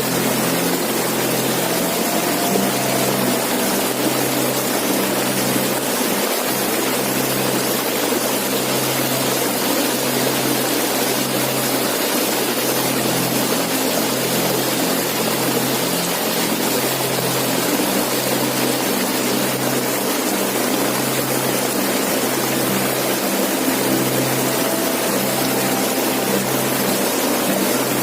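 Waterfall: water falling and rushing in a steady, even roar, with a low hum underneath that swells and fades about once a second.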